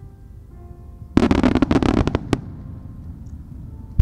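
Aerial fireworks: about a second in, a loud dense burst of rapid crackling lasting about a second, then a single sharp bang, over steady background music.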